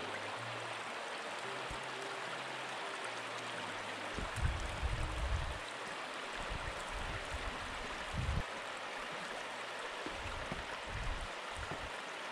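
Shallow water from the outlet of Marr Lake running over rocks, a steady rushing, with a few low thumps near the middle.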